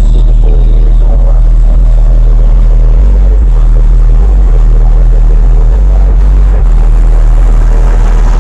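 Car engine idling, loud and steady with a deep rumble.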